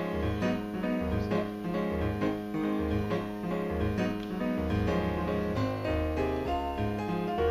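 Background instrumental music: a keyboard melody over a steady bass line that changes note about once a second.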